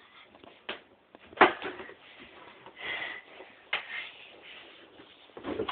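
A small child scuffling with a large teddy bear on a bed: a few sharp knocks and thumps, the loudest about a second and a half in, with quieter rustling between.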